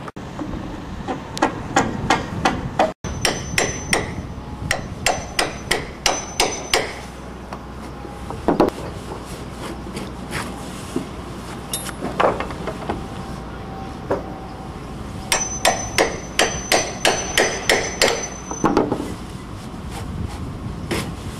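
Hammer blows at an old timber roof-truss joint as the truss is knocked apart. They come in two quick runs of about three to four blows a second, with a couple of single blows between.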